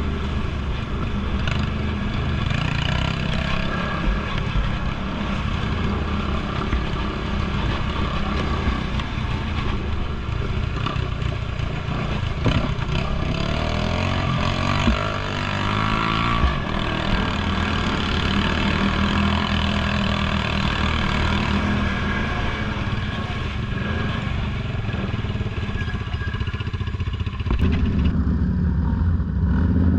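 ATV engine running steadily while riding, its pitch rising and falling a few times in the middle. Near the end the high hiss drops away and the lower engine note gets louder.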